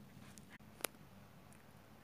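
Near silence: faint room tone with a low hum, broken by a single short, sharp click a little under a second in.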